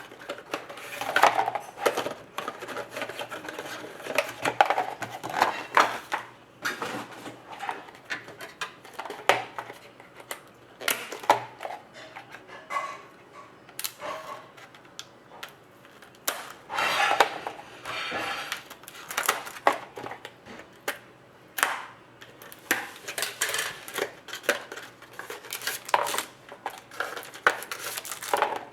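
Hands opening and handling a sealed box of football trading cards and its wrapped contents: irregular clicks, taps and rustles of cardboard, plastic wrap and cards.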